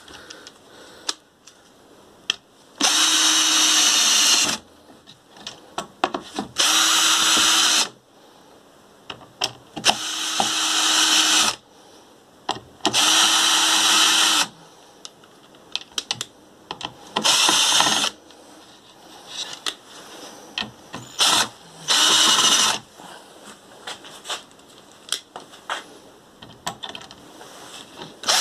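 Einhell BT-CD 18-2 18-volt cordless drill/driver driving wood screws into a wooden board. It runs in six short bursts of one to two seconds each, the motor whining and then stopping, with light clicks and knocks in the pauses between screws.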